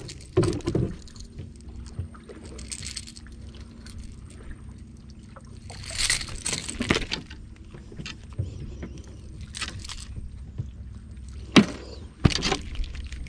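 Scattered rustles and knocks as a freshly caught barracuda is handled on a lip grip in a small wooden boat, over a faint steady low hum. The loudest bursts come about six seconds in and again near the end.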